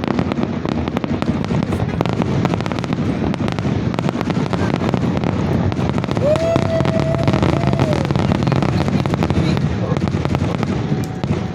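Fireworks grand finale: a dense, continuous barrage of rapid bangs and crackles with no pause between shells.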